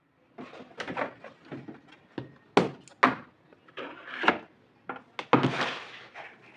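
A quick, irregular run of sharp knocks and clatters with rustling between them, as of household things being handled and set down.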